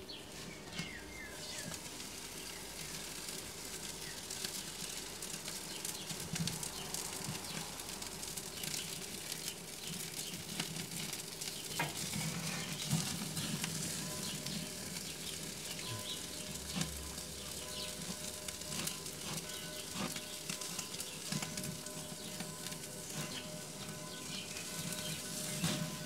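Steak searing directly over hot charcoal on a Big Green Egg kamado grill: steady sizzling with many small crackles and pops as flames flare up around the meat.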